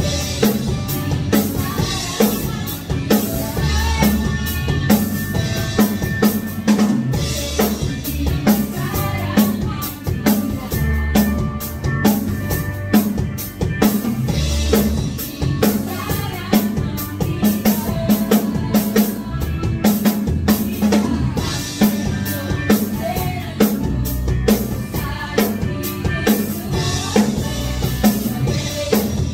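Live band playing a worship song: a drum kit keeping a steady beat, with electric guitar and keyboard.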